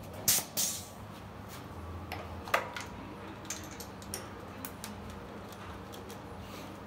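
Hands-on work over a bare engine with tools and a compression tester's hose: two short hisses near the start, a sharp metallic clink about two and a half seconds in, then scattered light clicks and ticks over a faint steady hum.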